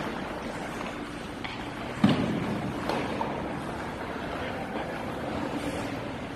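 Hockey skates scraping and carving on the ice in a large, echoing arena, a steady rushing hiss. A sharp knock about two seconds in rings out through the rink, followed by a lighter knock about a second later.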